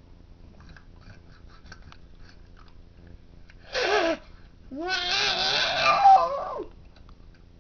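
Two drawn-out vocal cries: a short one falling in pitch, then a longer one of about two seconds whose pitch wavers up and down. Before them there is only faint rustling.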